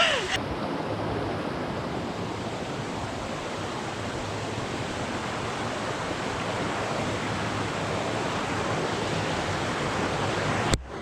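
Rushing river water, a steady even wash of noise; it drops out for a moment near the end.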